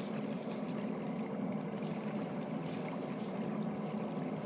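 Kawasaki Jetfoil passenger hydrofoil running on the water: a steady rush of water over a low machinery hum.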